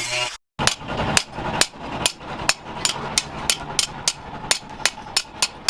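Hand hammer striking steel in a steady rhythm, about two to three sharp, ringing blows a second, as a sawmill blade is worked.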